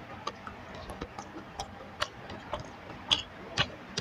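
Close-miked eating: irregular sharp, wet mouth clicks and smacks of chewing, about two a second.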